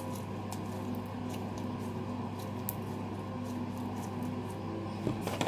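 Glitter slime squeezed and worked between the hands, giving scattered small sticky clicks, a few louder ones near the end, over a steady low hum.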